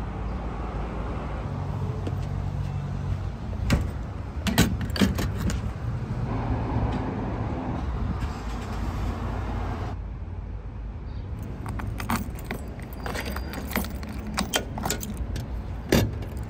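First-generation Toyota Tundra pickup on the road: a steady low rumble of engine and tyres, with sharp jangling, keys-like rattles a few seconds in and again in a cluster near the end. The higher road hiss eases about ten seconds in.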